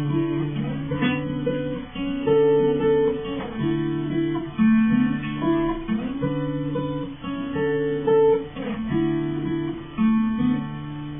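Acoustic guitar playing a run of chords with no voice. Near the end, a last chord rings out and fades.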